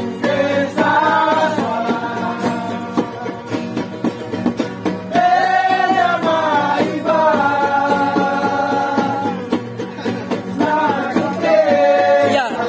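Acoustic guitars strummed steadily while men's voices sing in long, held phrases with short breaks between them.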